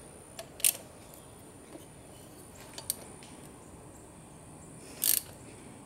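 Socket ratchet tightening a bolt through the access hole in a Yamaha F2.5 outboard's leg: a few short ratcheting rasps, about half a second in, near three seconds, and a louder one about five seconds in.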